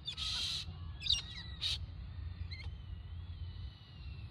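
Birds calling outdoors: a couple of short harsh squawks, one at the very start and another a little under two seconds in, among smaller chirps and whistles, over a low steady rumble.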